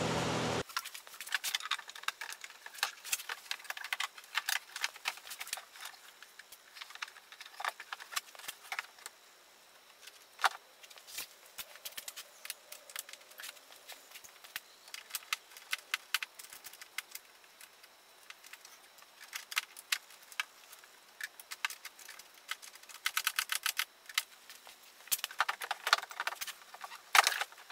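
Scattered light clicks, taps and small rattles of hard plastic parts being fitted by hand as a headlight and front trim are installed on the car's front end. A steady noise cuts off abruptly within the first second.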